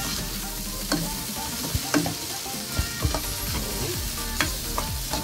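Washed rice and cumin seeds sizzling as they toast in margarine in a non-stick pan, stirred and scraped with a plastic spatula. Irregular clicks and scrapes of the spatula against the pan come through the steady sizzle.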